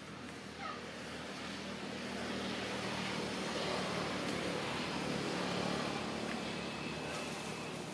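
A motor vehicle passing by: a broad engine-and-road noise that grows louder through the first half and fades toward the end.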